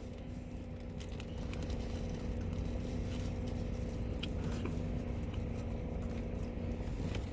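Steady low hum of an idling car engine heard from inside the cabin, with a faint steady tone over it and a few light clicks.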